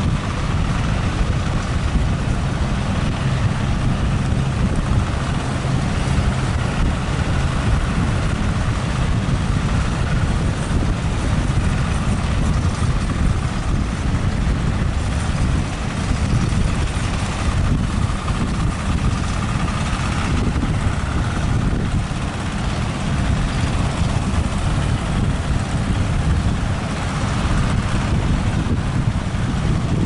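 Steady roar of wind buffeting the microphone and heavy surf breaking, with the engines of motorised outrigger fishing boats running underneath.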